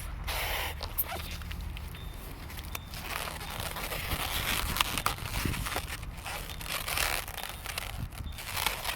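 Latex twisting balloons being handled and twisted, with irregular rubbery rubbing, squeaks and small clicks.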